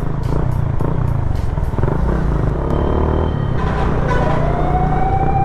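Riding a Yamaha Sniper 150, a 150 cc single-cylinder scooter-style motorcycle, in traffic: steady low rumble of wind on the helmet microphone and the engine running. About four seconds in, a tone rises and then holds steady.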